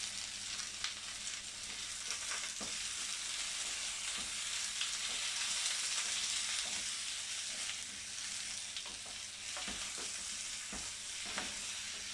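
Chopped courgettes sizzling sharply in a frying pan over a high gas flame, stirred and tossed with two wooden spoons that now and then knock and scrape against the pan.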